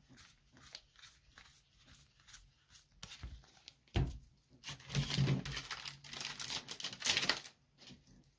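A trading-card booster pack's wrapper being torn open and crinkled, with cards clicking as they are handled. There is a sharp knock about four seconds in and louder bursts of crackling around five and seven seconds.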